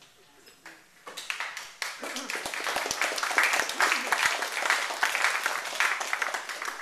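Audience applauding: the clapping starts about a second in, builds quickly and keeps up as a steady round.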